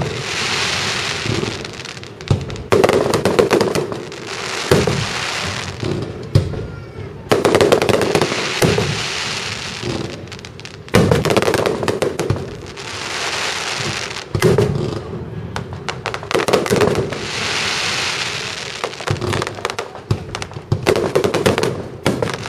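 Aerial firework shells bursting one after another, about eight sharp bangs a few seconds apart, each followed by a second or two of hissing crackle as the stars burn out.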